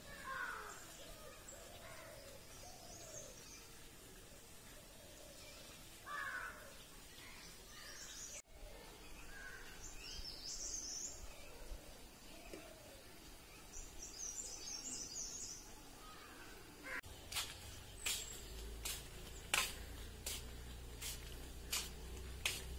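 A crow caws a few times and small birds chirp high and briefly. Near the end comes a run of sharp slaps about a second apart: footsteps in rubber slide sandals on a concrete floor.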